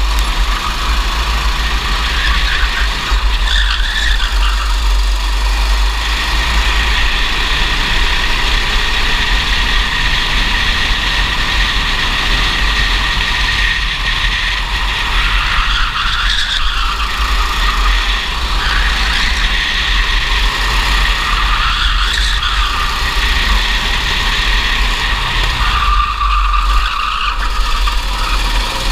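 Racing kart engine running hard, heard from the kart itself. Its pitch dips and climbs back several times as the kart slows into corners and accelerates out, over a heavy low rumble.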